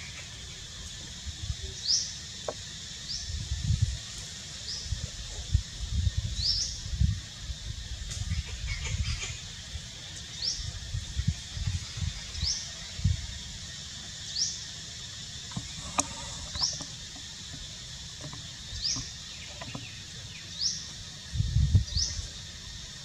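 A bird repeating a short, high, rising call every second or two over a steady high hiss, with irregular low thumps.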